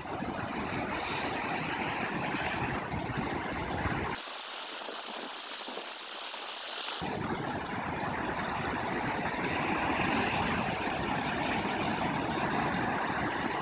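Ocean surf breaking on a beach: a steady rushing roar of waves with a low rumble, which drops out for about three seconds around the middle.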